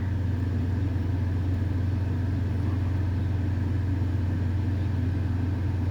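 Steady low rumble of a running engine, unchanging in pitch and level.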